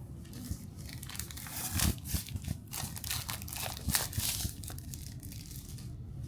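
Packaging of a wireless microphone kit crinkling and tearing as the box is unwrapped, in a run of irregular crackles that is loudest through the middle.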